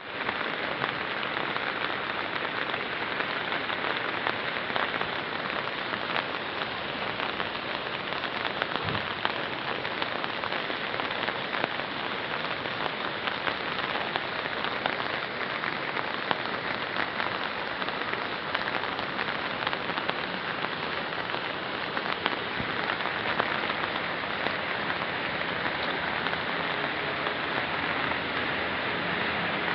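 Heavy storm rain pouring down steadily: a constant hiss with dense pattering of drops on surfaces.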